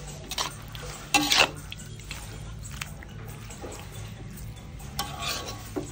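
A spatula scraping and knocking against a wok while stirring chunks of braised pork belly and greens, in a few separate strokes. The loudest clatter comes about a second in and another near the end, over a steady low hum.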